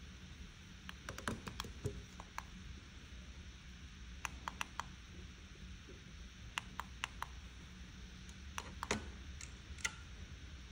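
Light, sharp clicks and taps in four short clusters of a few each, as false nail tips and small tools are handled on a hard surface, over a steady low hum.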